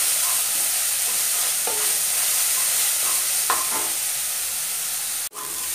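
Chopped onion sizzling in refined oil and butter in a non-stick kadai, being lightly fried and stirred with a wooden spatula that scrapes across the pan now and then. The sound drops out for an instant near the end.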